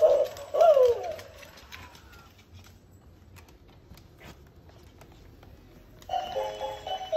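Electronic jingle from a battery-operated plush Christmas puppy toy. A pulsing tune ends about a second in with a falling squeal. A few faint taps follow, and the tune starts again near the end as stepped, beeping notes.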